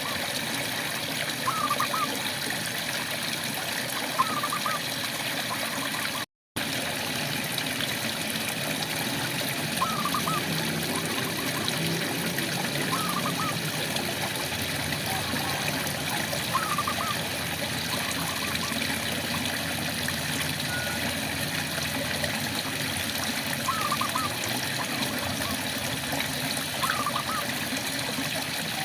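Steady rain falling, with a frog giving short chirping calls every two to three seconds. The sound cuts out completely for a moment about six seconds in.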